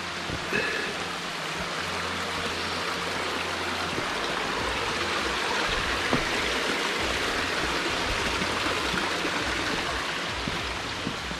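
A stream's water rushing steadily, growing a little louder in the middle and easing slightly toward the end.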